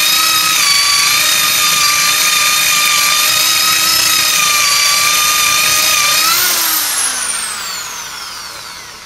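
Electric drill boring a large hole into the end of a wooden block, hammer action switched off, its motor running with a steady whine. About six and a half seconds in the trigger is released and the motor winds down with a falling pitch.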